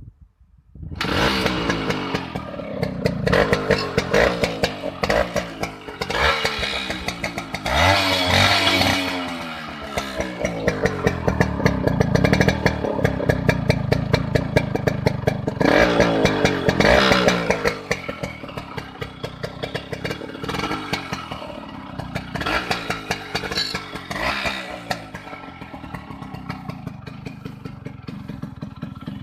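Suzuki Max 100's two-stroke single-cylinder engine, breathing through a fitted Yamaha RX100 silencer, starts about a second in. It is revved up and down repeatedly, then settles to a lower, steadier idle near the end.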